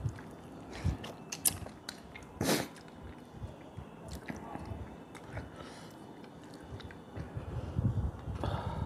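Mouth sounds of eating a piece of fish head from fish head soup: sharp wet clicks and smacks, a brief louder noisy burst about two and a half seconds in, then chewing near the end.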